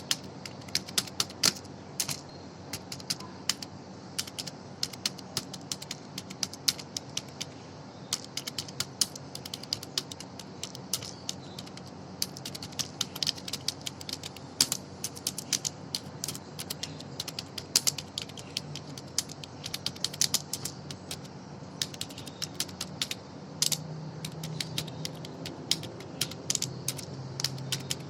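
A long run of sharp, irregular mechanical clicks, several a second, over a steady low hum.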